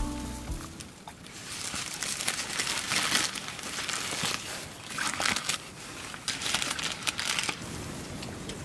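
Crinkling and tearing of a printed food wrapper as a packaged hamburger is opened by hand, in irregular crackles from about a second in until near the end.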